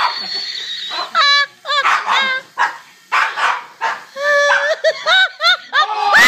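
Boston Terriers yipping and barking, a series of short high-pitched calls.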